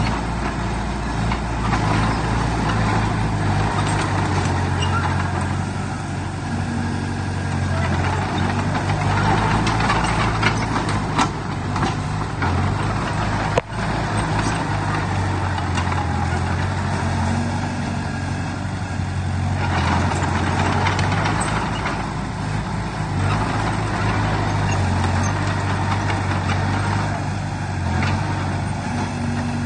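Heavy diesel earthmoving machinery running steadily, with a low, even engine drone and a few short sharp knocks.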